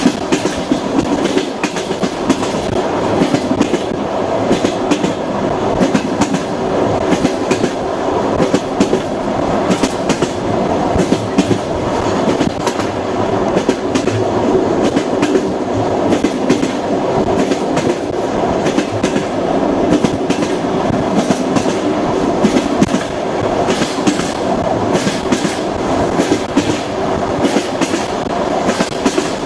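Passenger train running along the track: steady rumble of the carriage with the clickety-clack of wheels knocking over rail joints, the knocks coming often and unevenly through the run.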